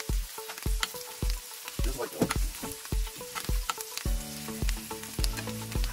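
Meat sizzling in a frying pan, a faint crackle under background music with a steady low beat; a bass line comes in about four seconds in.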